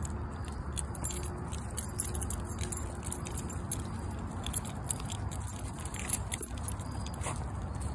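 Metal tags on a walking beagle's collar jingling in quick irregular clinks, over a low steady rumble.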